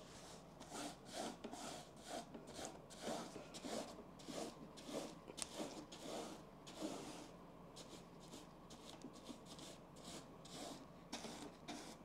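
Flat paint applicator brushing black paint onto the vertically ribbed side of a round table: repeated rasping strokes, about two a second, thinning out after about seven seconds.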